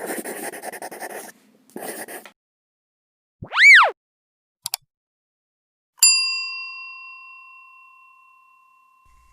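Edited sound effects: two short bursts of crackling noise, a single quick tone that rises and falls, and a pair of clicks, then about six seconds in a bell-like ding that rings out and fades over about three seconds.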